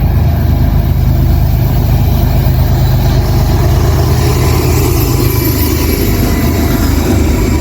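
Heavy locomotive engine running steadily and loudly, a deep rumble with a rough noisy wash above it.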